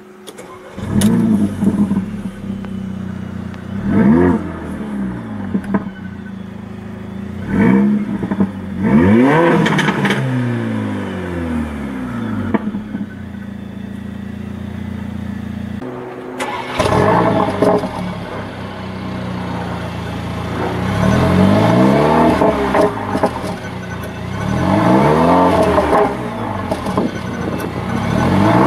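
Mercedes-AMG CLA 45 (C117) turbocharged four-cylinder starting up about a second in, then idling. It is revved in short blips about six times, each one rising and falling in pitch.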